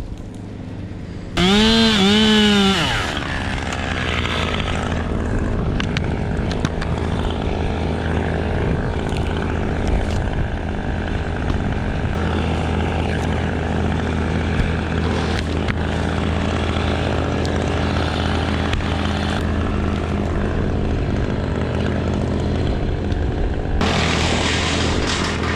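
An engine running steadily, with a brief loud pitched sound that rises and falls about a second and a half in.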